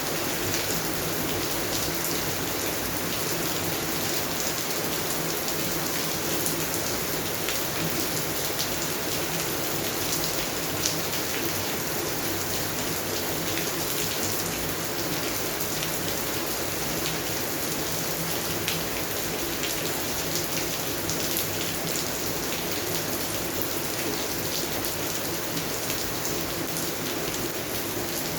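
Steady rain falling on garden plants, an even hiss thick with the fine ticks of individual drops.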